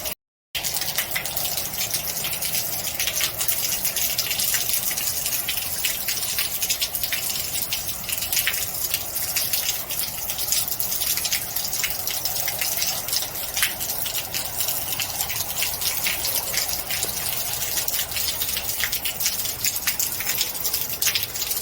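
Heavy rain falling steadily, with water gushing and many sharp drips splashing throughout.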